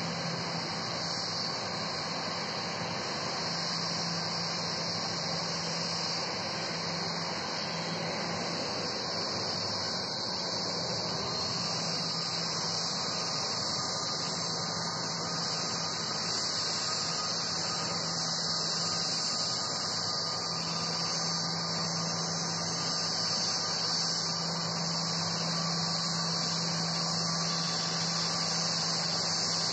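Airbus A340 jet engines at taxi idle as the airliner rolls across the apron: a steady high-pitched whine and hiss over a steady low hum.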